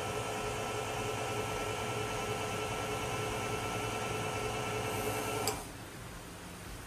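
Milling machine's auto feed motor running steadily with a whining hum as it drives the table across, then cutting off suddenly with a click about five and a half seconds in.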